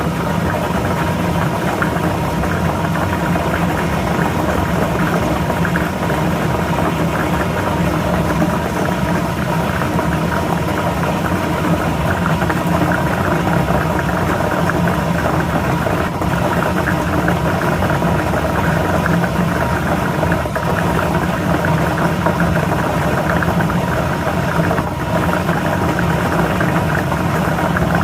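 Lottery ball draw machine running steadily: its motor or blower hums while the numbered balls tumble and rattle inside the mixing chamber.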